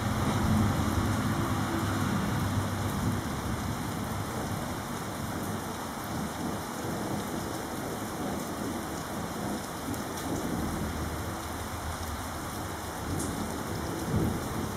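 Heavy rain falling steadily during a thunderstorm, with low rolls of thunder rumbling under it, strongest in the first few seconds and again near the end.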